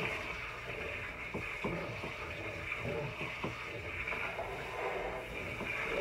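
Tap water running steadily into a sink that is filling up, with a few light knocks and splashes.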